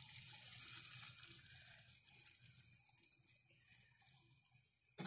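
Mushrooms frying in a pan sizzle with a soft hiss as beaten egg is poured over them and stirred in with a fork; the sizzle fades gradually.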